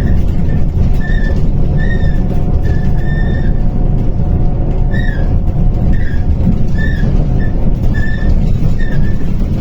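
MAZ 105 city bus running on the move, a loud steady low rumble of engine and road, with a short high tone repeating about once a second over it.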